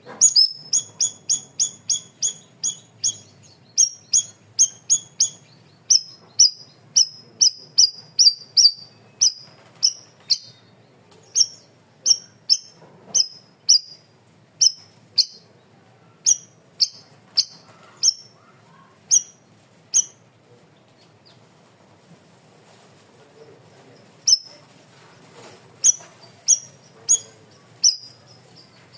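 Cucak rawis (bayeman) songbird giving the sharp, high chirps called tembakan. The notes come in a quick run of about three a second, then spaced more widely, pause for a few seconds past the middle, and start again.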